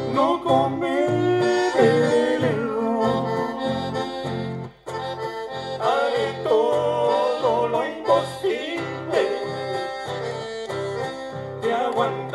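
Live folk band playing an instrumental passage: acoustic guitars over a steady, even bass beat with a gliding, accordion-like lead melody. The sound drops out for a moment about five seconds in.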